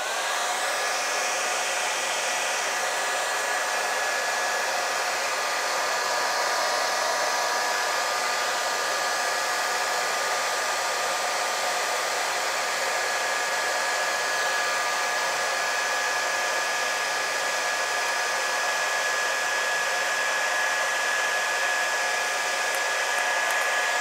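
Handheld hair dryer running steadily, a blowing rush of air with a whine of several steady tones from its fan motor.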